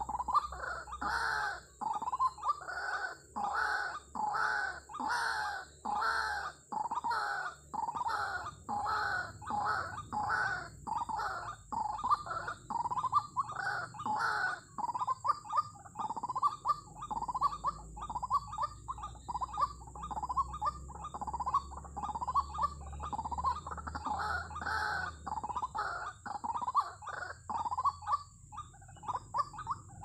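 White-breasted waterhen (ruak-ruak) calling: a loud repeated call about one and a half times a second. Midway the calls run together into an unbroken chatter for about ten seconds, then separate again near the end.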